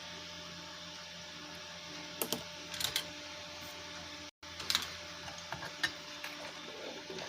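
A few light clicks and taps of a short piece of insulated copper wire being handled at a workbench, over a steady low hum.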